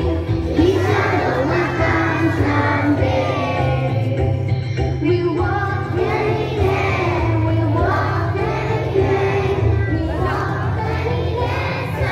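A group of young children singing a morning prayer together in chorus.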